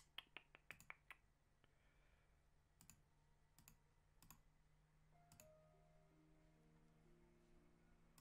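Near silence with faint clicking at a computer: a quick run of clicks in the first second, then scattered single clicks, over a low steady hum.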